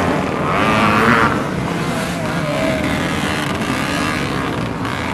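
A pack of vintage motocross motorcycles accelerating hard away from the start, many engines running at once. One bike revs louder close by, about a second in.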